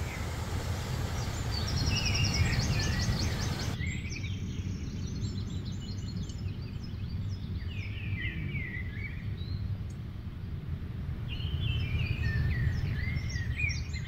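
Songbirds singing short repeated phrases and trills over a steady low rumble. For the first four seconds a stream running over rocks adds a broad rushing hiss, which cuts off abruptly.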